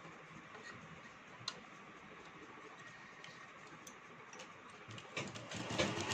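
Faint small clicks and rustles of fabric being handled at a sewing machine's needle plate, with one sharper click about a second and a half in. About five seconds in, the sewing machine starts running, stitching through the gathered fabric.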